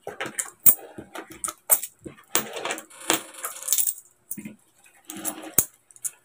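Metal coins clinking as they are scooped up by hand, jingled in the palm and set down into stacks on a tabletop. The clinks come irregularly, with some sliding and scraping of coins between them.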